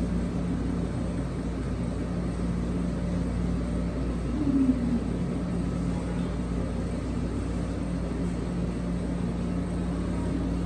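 Steady low machine hum of the ice-cream shop's equipment, with a faint voice briefly about four seconds in.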